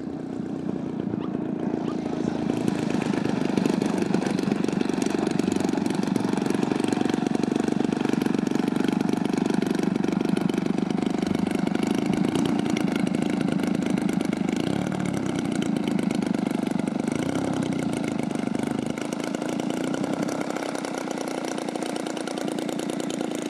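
100cc gas engine of a giant-scale RC Yak 55M aerobatic plane idling with the propeller turning slowly, growing louder over the first few seconds as the plane rolls closer. Its pitch wavers slightly now and then.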